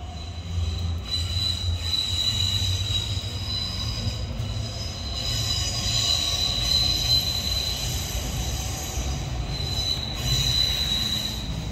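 Steel wheels of a rail vehicle squealing on the track: a high, steady squeal over a low rumble, fading briefly about four seconds in and again near ten seconds.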